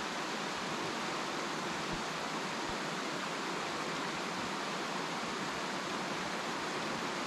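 Steady rush of fast-falling water from a waterfall, an even hiss with no breaks.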